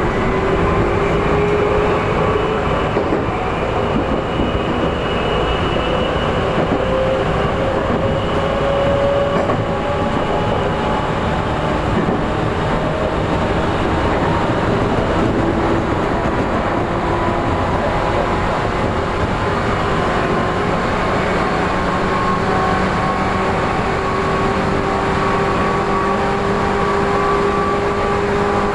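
Tokyu 8500 series electric train heard from on board, running with a loud traction-motor whine that climbs slowly in pitch as the train gathers speed, over steady wheel-and-rail rumble.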